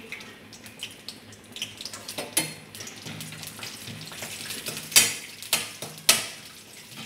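Cashews and green chillies frying in oil in a metal kadai, stirred with a metal spatula that scrapes against the pan several times, with a few sharp strokes in the second half standing out over a soft sizzle.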